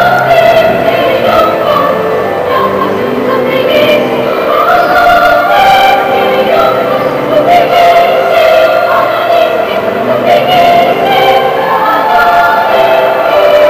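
A children's choir of boys and girls singing in several parts, with long held notes.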